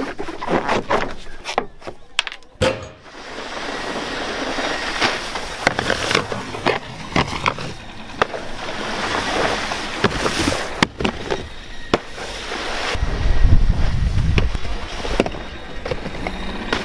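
A boat wakeboard being towed across the water by a cable: a steady rush of spray and wind, broken by many sharp knocks and slaps. It starts with a cluster of clicks and knocks. A deep rumble, the loudest part, swells about 13 seconds in as the board reaches a rail box.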